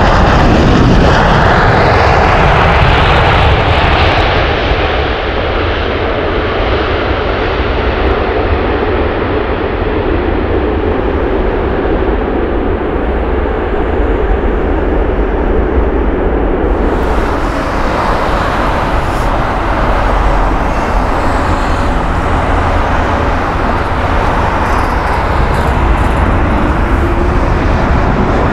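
Jet airliner engines on landing approach, loudest at the start as the aircraft passes close, then easing to a steady rumble. About two-thirds of the way in the sound changes abruptly to another aircraft's engine noise, which holds steady to the end.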